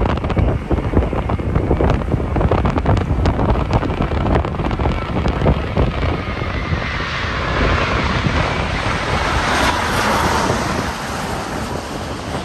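Wind buffeting the microphone, then the jet engines of a low Boeing 787-9 (ANA, Rolls-Royce Trent 1000) on final approach growing louder as it passes overhead, loudest about ten seconds in, with a faint whine from the fans, then easing off.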